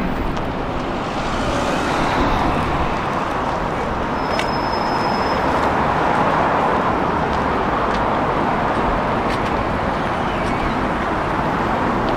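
Steady urban road traffic noise, a constant wash of vehicles, with a brief high-pitched tone about four seconds in.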